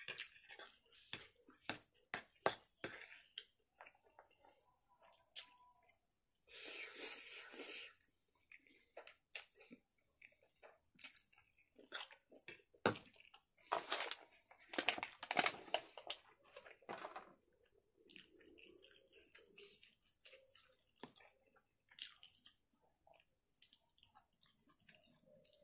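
Close-miked mouth sounds of a person eating Korean spicy instant noodles: chewing and wet smacking, with many short sharp clicks of a fork against the plate. There is a longer noisy stretch about seven seconds in and a busier spell of clicks and chewing in the middle.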